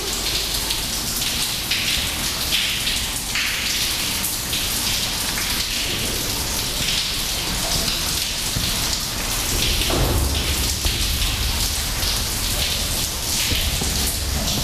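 Footsteps on a steel stairway and the rustle of clothing and a backpack as people climb, over a steady crackling hiss with many small ticks.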